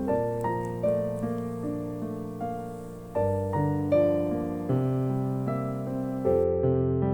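Slow, gentle piano music: soft struck notes fading over a low bass note that changes about every three seconds.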